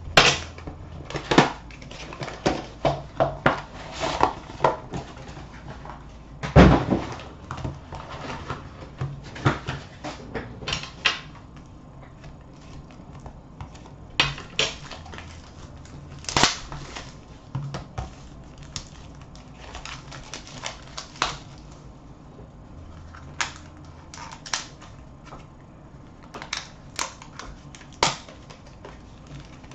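Irregular clicks, taps and rustles of hockey card packs being cut open and the cards handled, with a louder knock about six and a half seconds in.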